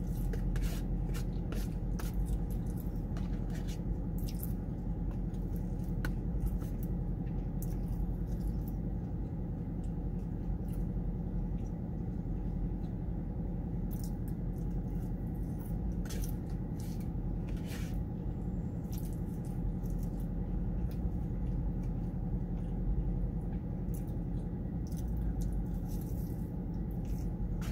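Eating sounds of someone chewing chili cheese fries: wet mouth clicks and smacks scattered throughout, over a steady low hum.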